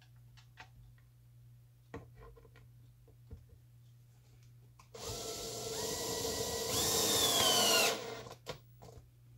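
Power drill driving a mounting screw into a board. After a few light handling clicks, the motor runs for about three seconds from five seconds in, its whine stepping up in pitch, then stops.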